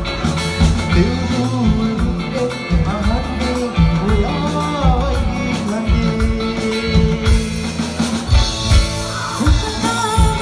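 Live band music with a steady beat from bass and drums, and a singer's voice carrying the melody.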